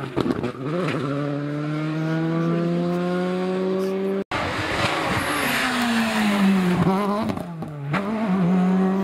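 Two rally cars at full throttle over a crest, one after the other. The first pulls away with its engine note climbing steadily in one gear until a sudden cut a little past four seconds in. The second comes in with its engine note falling, drops away briefly near the end, then climbs again as it drives off.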